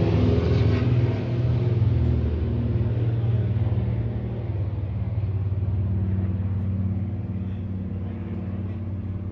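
Heavy engine of tree-removal equipment running steadily at an even pitch, growing gradually quieter.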